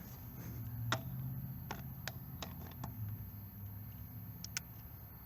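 Quiet handling sounds: about six light clicks and taps spread unevenly over a low steady hum.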